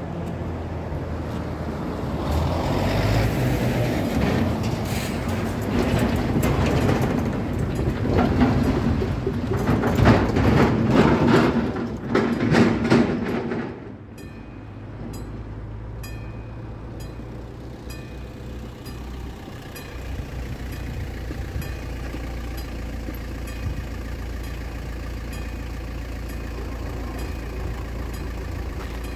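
Cars and a heavy truck drive over a railway level crossing, their tyres and engines loud for the first half. About 14 s in the traffic noise drops away and the crossing's old-style mechanical warning bells start ringing in even, repeated strokes, which keep on to the end over a low engine hum.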